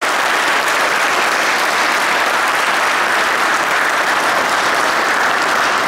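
Crowd of guests applauding: dense, steady clapping from many hands.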